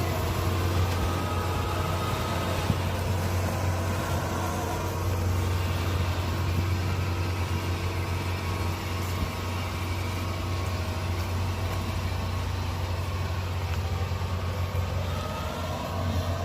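Diesel engine of a Kubota DC-70 Plus rice combine harvester running steadily with a low, even hum.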